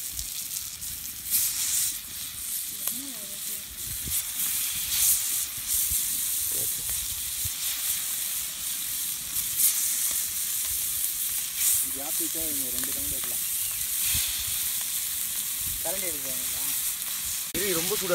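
Marinated tilapia pieces sizzling in oil on a wide flat iron pan over a wood fire, the steady sizzle flaring up now and then as more pieces are laid on the hot metal.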